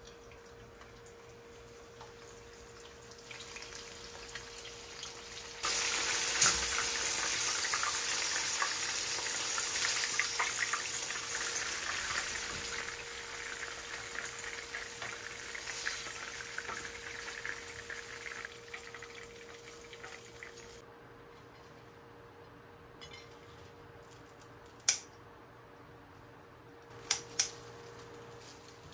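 Chicken pieces deep-frying in hot oil: a dense crackling sizzle starts suddenly about six seconds in and dies away over the next dozen seconds. Near the end come a few sharp clicks, with a faint steady hum underneath throughout.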